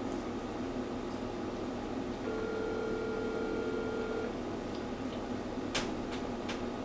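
Telephone ringback tone heard over a phone's speaker: one steady two-second ring about two seconds in, the call still ringing unanswered. A sharp click near the end.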